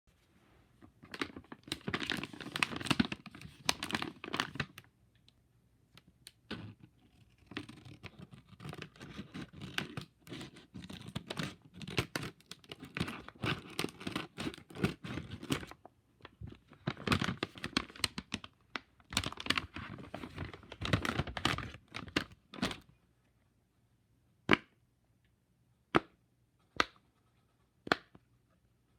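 Packaging of a fidget toy pack being torn open and handled, with repeated tearing, crinkling and crackling. Near the end this gives way to a few separate sharp clicks.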